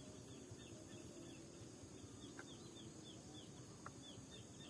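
Faint outdoor near-quiet with a string of short, high, falling chirps from a small animal, about two or three a second, over a low steady rumble.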